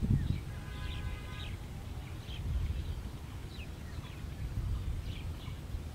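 Small birds chirping in short, repeated calls over a steady low rumble, with a brief steady tone about a second in.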